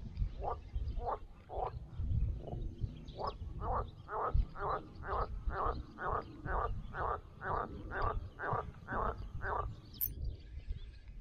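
A frog calling: a long series of croaks, about two to three a second, faint at first, then louder and very regular before stopping near the end. There is a low rumble underneath and a single sharp click just after the croaking stops.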